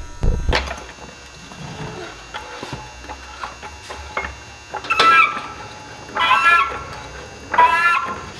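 A chicken calls three times in the second half, each call about half a second long, over a few light knocks from handling tools or parts early on.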